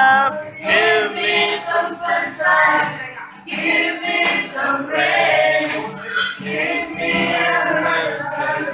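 A group of people singing together, several voices at once.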